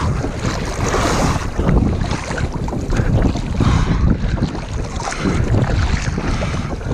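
Choppy water splashing and sloshing at the waterline against a capsized sailing dinghy's hull, with strong wind buffeting the microphone.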